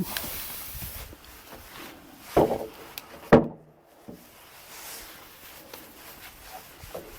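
Two knocks of wood on wood about a second apart, the second sharper, each with a short hollow ring, over scuffling footsteps: freshly milled pine timbers being handled on the lumber stack.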